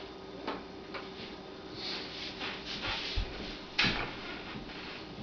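A few light clicks and knocks in a small kitchen, the strongest about four seconds in, over a faint steady hum.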